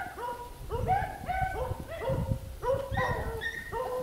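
A pack of beagles baying on a rabbit's trail: several dogs giving short, rising bay calls that overlap one another, several a second, without a break.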